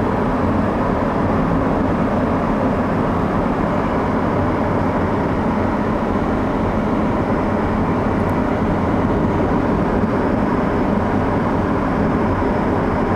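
Steady road and engine noise heard from inside a car driving on a paved road, an even rumble and hiss with no sharp events.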